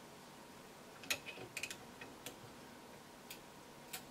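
A few light, irregular metallic clicks and taps from a wrench and socket knocking against the 3D printer's hot end as a new nozzle is tightened into the heater block.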